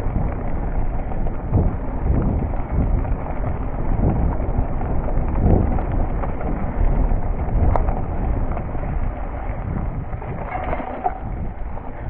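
Cube Stereo full-suspension mountain bike rolling fast over a dirt singletrail: a steady rumble of tyres on the ground with irregular knocks and rattles from the bike over bumps and roots.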